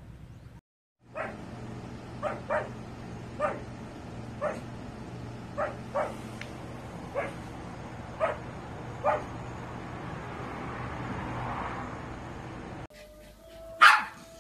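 Pomeranian barking: about ten short barks, some single and some in quick pairs, over a steady low hum. Near the end, after a sudden change in the background, come two much louder barks.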